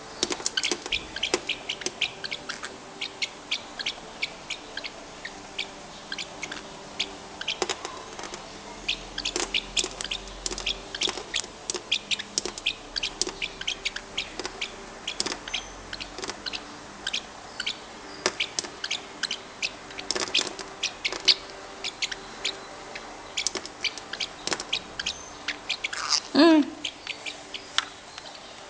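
Pet bird making a long string of quick, sharp clicking chirps, several a second, with one loud call that slides down in pitch near the end.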